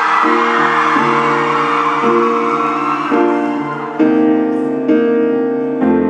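Stage keyboard played with a piano sound: slow sustained chords, a new one struck about every second. Audience screaming or cheering over the first few seconds fades away.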